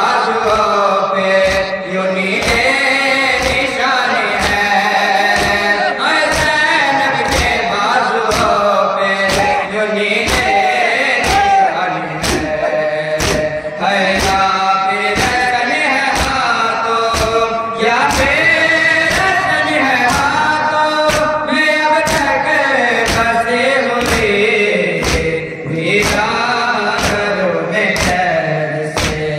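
Male voices chanting a nauha, a Shia mourning elegy, in chorus, over a steady beat of sharp slaps from mourners beating their chests (matam) in time with the chant.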